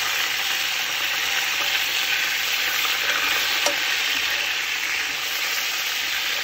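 Skin-on chicken thighs frying in hot oil in a large pot, a steady sizzle. About halfway through, the metal tongs turning the pieces give one sharp click.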